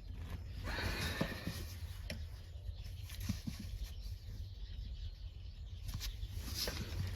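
Scattered light clicks, taps and rustling from hands handling small wiring parts, over a low steady hum.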